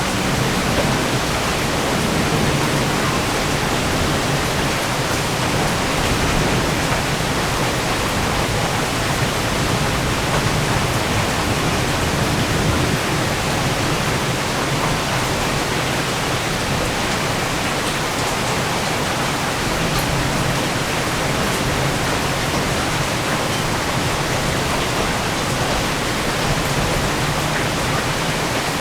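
Steady rain falling in a thunderstorm, an even hiss without thunder claps.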